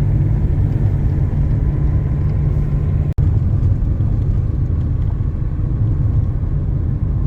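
Steady low rumble of a car in motion, road and engine noise, with a brief break about three seconds in.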